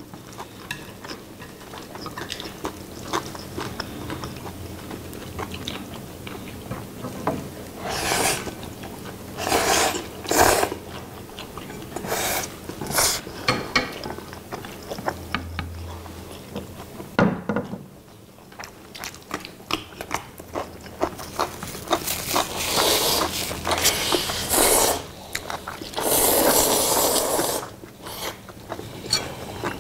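Close-up eating sounds of Chapagetti black-bean noodles: chewing and several loud noodle slurps, the longest near the end, with short clicks of chopsticks and metal tongs against the plates.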